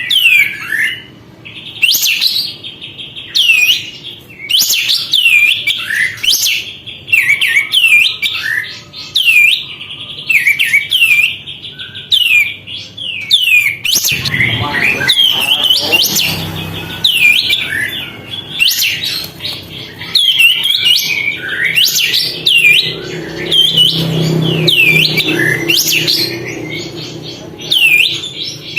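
Kapas tembak bulbul singing persistently: a long run of short, sharp, down-slurred chirps. A low drone sits underneath through the second half.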